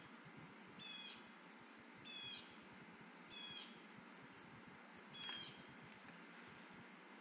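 An animal's short, high call, repeated four times about a second apart with a longer pause before the last, faint over background hiss.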